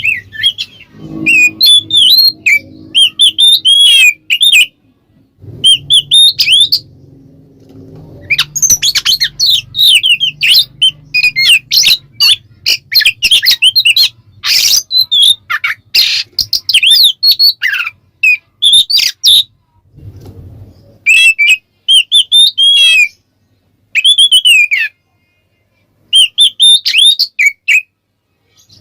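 Oriental magpie-robin (kacer) singing loudly in full song: rapid, varied phrases of whistles and chattering notes, broken by short pauses.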